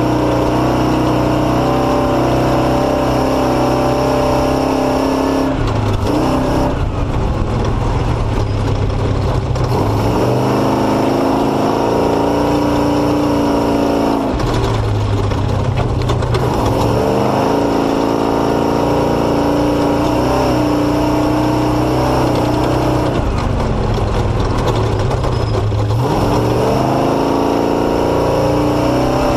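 Motorcycle engine running steadily under load, its revs dipping and climbing back several times.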